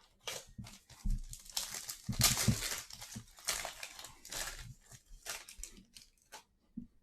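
A plastic trading-card pack wrapper crinkling and being torn open by hand, in an irregular run of rustles that is loudest about two seconds in.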